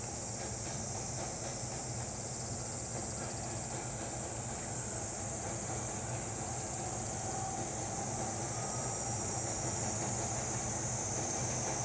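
JR East E231-series electric train running across a railway bridge, heard from afar as a steady low rumble of wheels on rails. A steady high hiss of insects sits over it.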